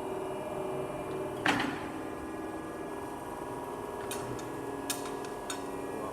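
Diacro CNC bender running with a steady hum whose tones shift about halfway through. There is a single sharp metallic knock about a second and a half in, and a few light clicks later on.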